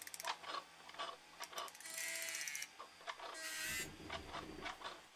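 Mechanical sound effects for an animated machine: a rapid run of ratcheting clicks, then scattered clicks and clunks, with two short whirring runs about two seconds in and again about three and a half seconds in.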